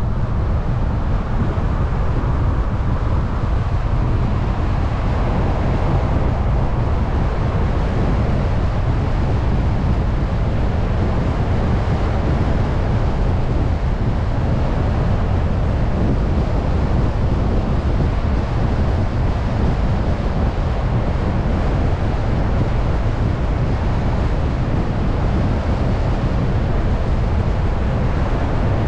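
Steady rumble of a car driving at road speed: tyre and road noise, with wind buffeting the microphone. It fills out a little about five seconds in.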